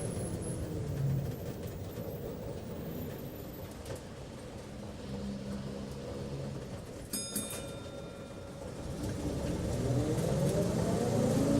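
Bus engine and road noise heard from inside the bus: the engine note falls as it slows, runs low and quieter through the middle, then rises as the bus accelerates again over the last few seconds. A brief high tone sounds about seven seconds in.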